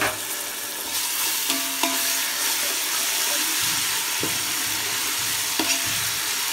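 Ginger-garlic paste sizzling in hot oil among golden fried onions in a stainless steel pot, stirred with a steel ladle that scrapes and clinks against the pot a few times.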